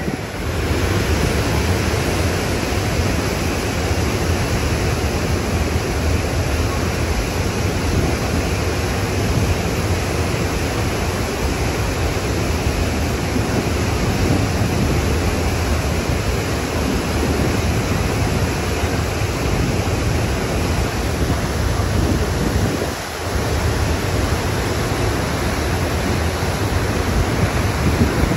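Wind buffeting the microphone over the steady rush of a car ferry's wake churning behind the stern, with a brief lull late on.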